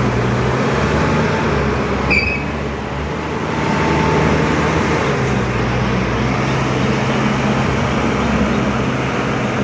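ACE AX124 backhoe loader's diesel engine running steadily under load as the machine is worked through its demo moves, the engine note wavering for a couple of seconds in the middle. A brief high squeak sounds about two seconds in.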